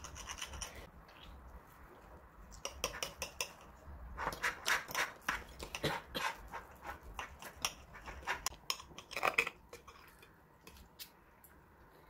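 Steel knife and fork clinking and scraping on a ceramic plate while cutting French toast, in several quick runs of taps and scrapes.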